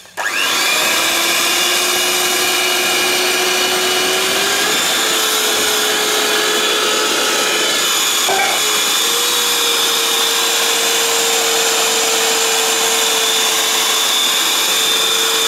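Electric hand mixer with dough hooks running steadily through butter and powdered sugar in a stainless steel bowl. Its motor whine steps up slightly in pitch about four seconds in and again about nine seconds in.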